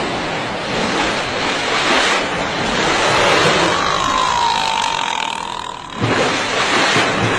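Steady rushing surf and water. A single whistling tone glides down slightly and levels off from about four to six seconds in, then a sudden splash comes about six seconds in.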